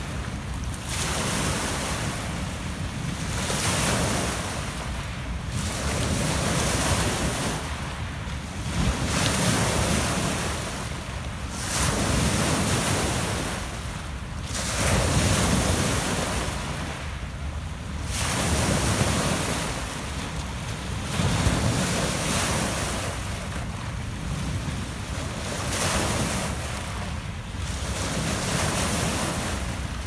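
Small Lake Ontario waves breaking and washing up over a pebble beach, swelling and ebbing every two to three seconds.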